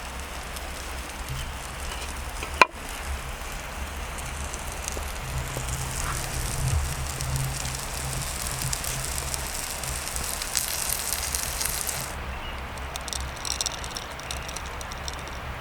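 Campfire burning with a steady hiss and fine crackles. A single sharp click comes about two and a half seconds in.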